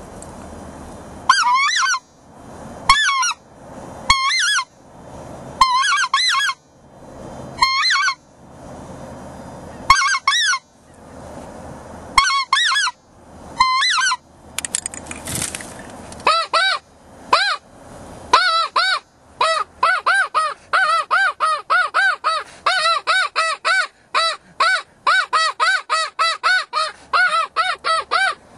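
Snow goose call blown by a hunter: single high honks about a second and a half apart, with a hiss swelling between them, then from about halfway a quick run of calls, about three a second.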